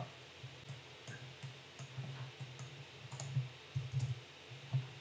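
Several faint, scattered clicks of computer keys being pressed on a keyboard, spaced irregularly.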